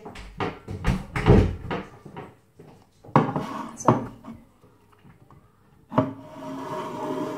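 Knocks and handling noise of a plastic tumbler and other objects on a kitchen worktop, with two sharp knocks a little after three seconds in as the tumbler is put down. A steady hum comes in about six seconds in.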